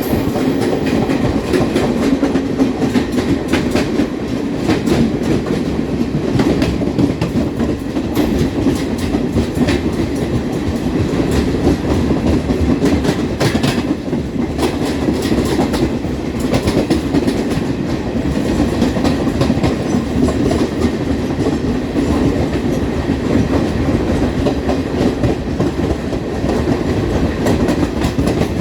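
Passenger train running at speed, heard from aboard a coach of an Indian Railways Duronto Express: a steady rumble of wheels on rail with the clickety-clack of rail joints.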